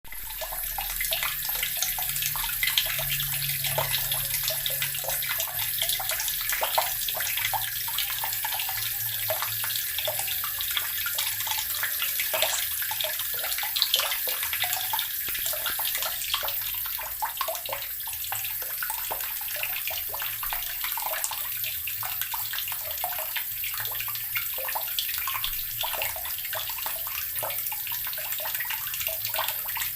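Water tap running into an earthen barrel: a continuous stream splashing and gurgling into the water already held in the clay vessel.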